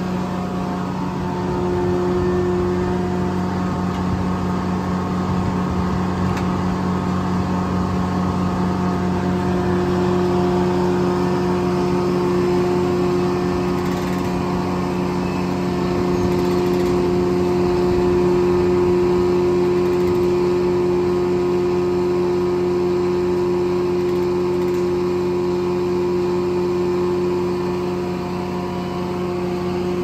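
Corley circle sawmill running steadily, its power unit and spinning circular blade making a constant drone at an unchanging pitch.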